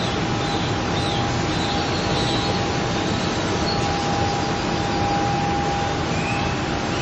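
Steady rushing noise with a thin, unchanging tone running through it and a few faint, short high chirps; no bang or crack stands out.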